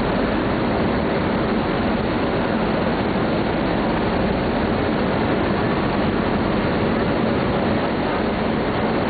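Steady rush of churning wake water alongside a high-speed catamaran ferry, over the even drone of the ferry's engines.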